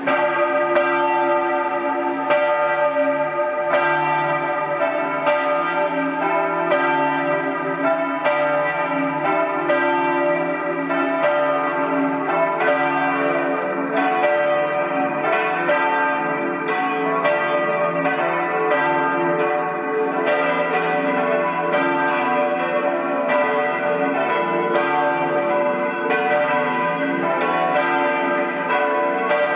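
Four church bells, tuned D, E, F-sharp and B and cast by Cavadini of Verona and Colbacchini of Trento in 1922, ringing together in a continuous tumble of overlapping strikes, several a second: a partial peal calling to a church service.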